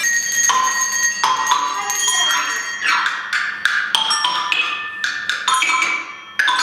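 Experimental music of struck percussion with ringing, pitched, bell-like tones, hit irregularly several times a second. The playing thins out and dips briefly just before the end, then a loud strike comes back in.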